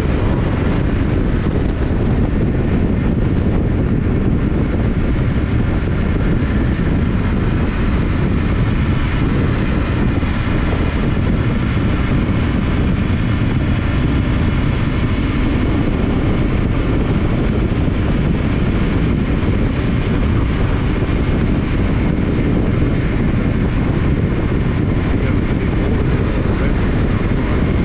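Yamaha Ténéré 700's parallel-twin engine running at a steady cruising speed, mixed with wind rush over the microphone.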